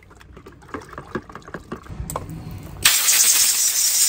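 Small knocks and water sloshing in a plastic bucket, then about three seconds in a garden-hose spray nozzle opens with a loud steady hiss, rinsing the baking-soda solution off a corroded wiring connector.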